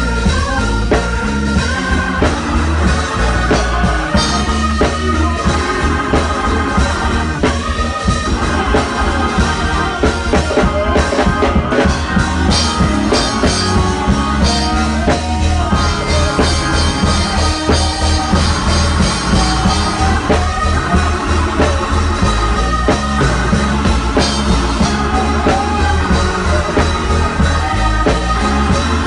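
Live church band music: a drum kit played close to the microphone, with an organ and a singer on a microphone.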